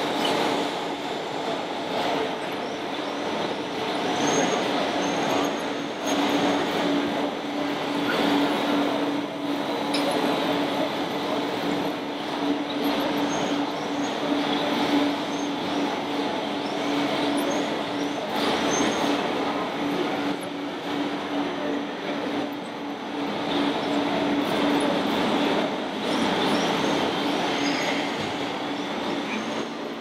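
Busy exhibition-hall din with a steady droning hum through most of it and faint high squeaks now and then.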